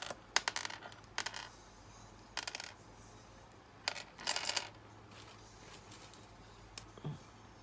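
Young pet parrot's beak clicking and tapping as it eats, in several short bursts of quick, sharp clicks.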